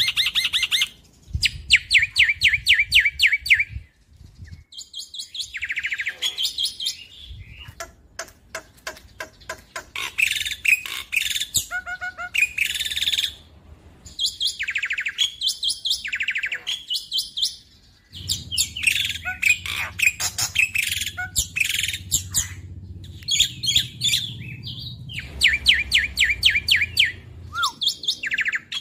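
Black-winged starling singing loudly in a long run of rapid repeated notes, trills and chattering whistled phrases. The phrases come in bursts of a second or two, separated by short pauses.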